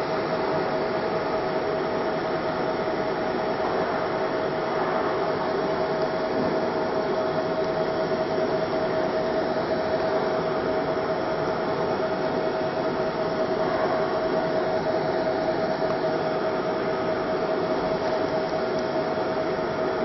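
Steady drone of running machinery with one constant mid-pitched whine riding on it, unchanging in level throughout.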